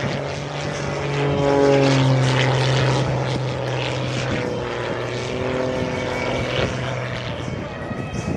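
Zivko Edge 540 aerobatic plane's piston engine and propeller droning in flight. The pitch falls and rises as it manoeuvres, easing off near the end.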